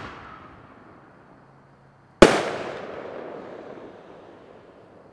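An aerial firework shell bursts with one loud, sharp bang about two seconds in, echoing as it fades. At the start, the echo of an earlier bang is dying away.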